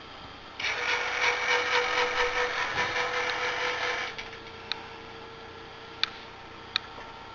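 Homemade azimuth-elevation antenna rotor's motor drive running with a fast, even mechanical buzz for about three and a half seconds, slewing the antenna to follow a satellite, then stopping. Three short sharp clicks follow.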